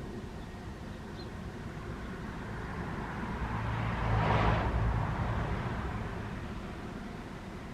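A car passing by: engine hum and tyre noise swell to a peak about four seconds in, then fade away.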